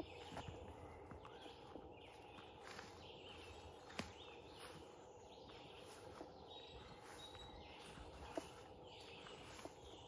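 Faint footsteps on a dirt forest trail, with birds singing and chirping in the background.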